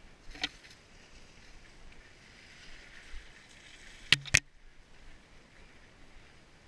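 Mountain bike riding a wet, muddy trail: a hiss of tyres and trail noise, with a knock about half a second in and two sharp, loud knocks in quick succession a little after four seconds as the bike jolts over rough ground.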